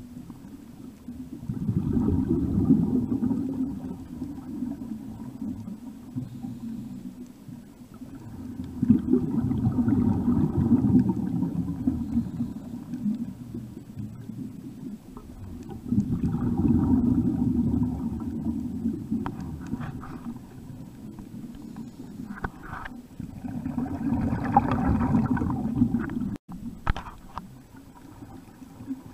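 A scuba diver's exhaled bubbles rumbling and gurgling out of the regulator, heard underwater: four breaths, each lasting two to four seconds, about seven seconds apart, with quieter inhalations between them.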